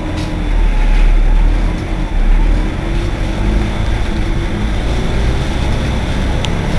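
Irisbus Citelis 18 articulated city bus's engine idling steadily while the bus stands at a stop.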